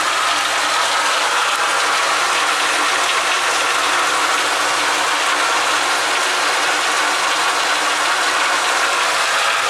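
Flushing pump running loudly and steadily as it circulates water through a closed heating circuit during chemical cleaning.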